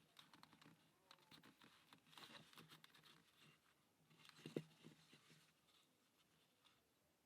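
Faint clicks and light taps of wooden plywood puzzle parts being handled and turned, with one louder knock about four and a half seconds in. It tails off to only faint clicks.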